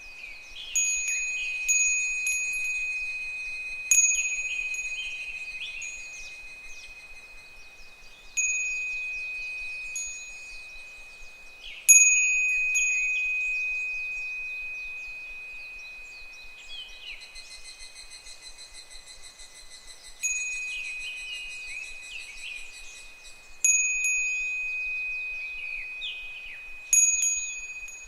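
Japanese fūrin wind bell swaying in the breeze, its clapper striking about nine times at uneven intervals, each clear high ring dying away slowly. Behind it higurashi (evening cicadas) call in a fast pulsing trill, strongest in the second half.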